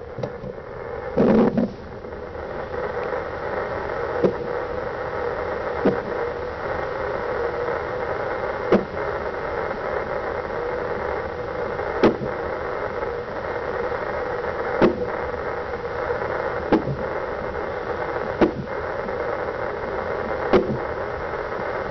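Steady hiss from a fetal doppler with about eight sharp thumps, roughly every two to three seconds: a 34-week baby hiccuping in the womb. There is a louder rustle about a second in.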